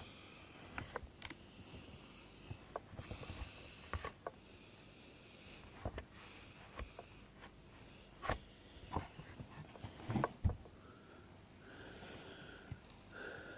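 A cloth rubbing and wiping over the dusty plastic engine cover of a Shindaiwa T270 string trimmer, with scattered light knocks and taps, and a few short squeaks near the end.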